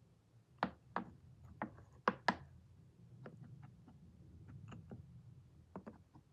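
A pet chewing on its stick toy: sharp clicks and knocks, five louder ones in the first two and a half seconds, then softer, scattered ones. A faint low hum runs underneath.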